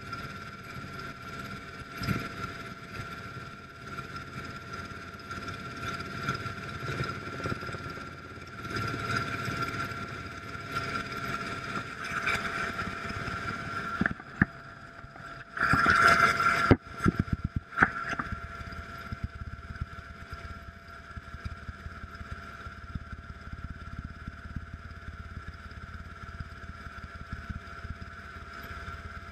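Rescue helicopter heard from inside its cabin with the side door open: a steady turbine and gearbox whine over rotor and airflow rumble. About sixteen seconds in, a loud rushing burst lasts a second or so, followed by a few sharp knocks.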